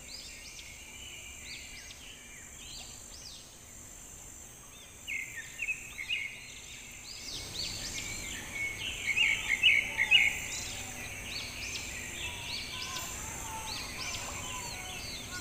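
Birds chirping and calling, busier and louder from about halfway through, over a steady high buzz of insects.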